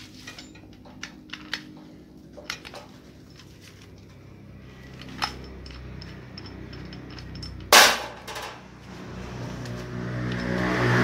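Scattered clicks and taps from paper being handled, with one loud crackling burst about eight seconds in.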